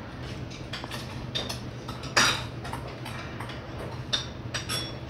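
Metal spoon scooping rice from a stainless steel rice pot, several short clinks and scrapes against the pot, some ringing briefly, the loudest about two seconds in.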